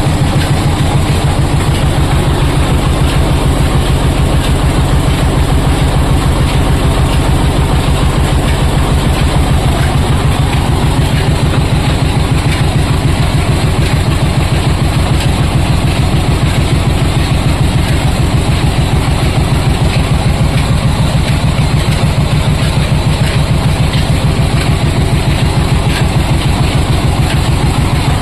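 Belt-driven oil expeller machine running steadily, with a fast, even mechanical beat.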